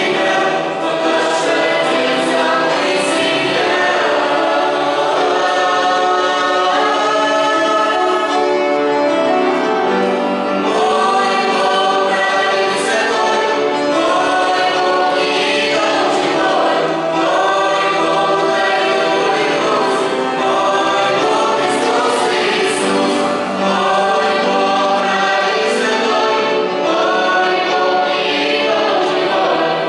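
Youth choir singing a Christian song, several voices together in a steady sustained melody.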